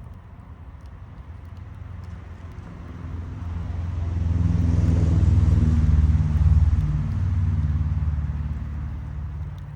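A motor vehicle passing by: its engine and tyre noise grow louder over a few seconds, peak in the middle, then fade away.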